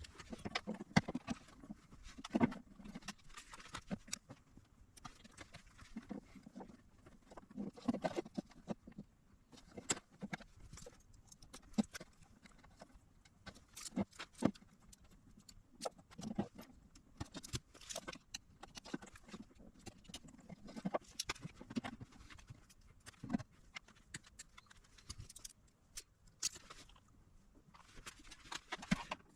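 Irregular light clicks and knocks, a few a second at most, from tools and small parts being handled during bench repair work on an electronic unit.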